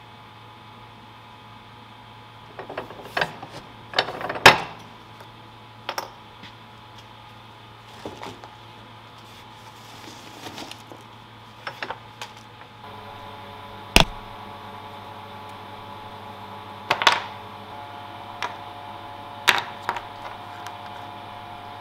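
Scattered knocks and clicks from hand work with a benchtop arbor press punching leather washers, then small pieces being set down on a wooden bench. A steady low hum runs underneath, and the loudest knock comes about four and a half seconds in.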